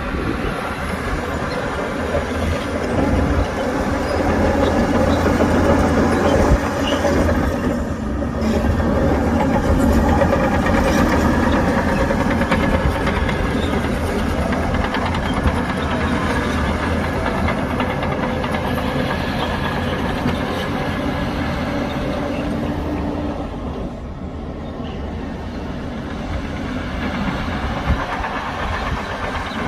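Heavy diesel engine of earthmoving machinery running steadily under load. It grows louder about four seconds in and eases off after about twenty-two seconds.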